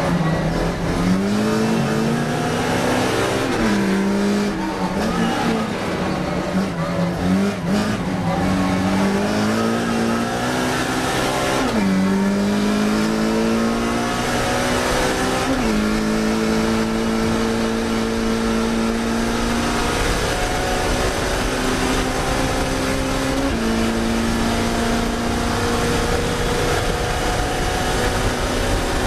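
Classic Mini racing car's four-cylinder A-series engine at full throttle. Its pitch climbs through each gear and drops suddenly at the gear changes, about five times, with longer, slower climbs on the straights.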